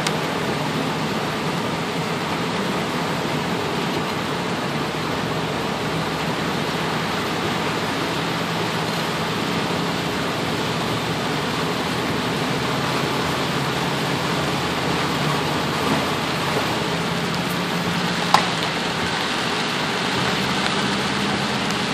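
Heavy rain on a car, heard from inside the cabin, mixed with tyres running through standing floodwater: a steady rushing hiss. A single sharp click comes about eighteen seconds in.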